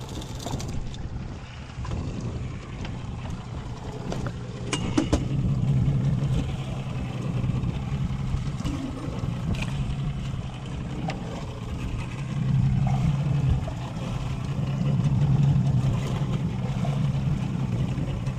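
A 200 HP Mercury Saltwater Series outboard running at low speed, a steady low hum that swells and eases. A few sharp knocks sound about four to five seconds in.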